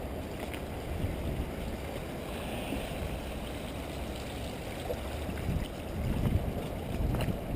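Typhoon wind buffeting the action camera's microphone as a steady low rumble, with stronger gusts about five and a half to seven seconds in.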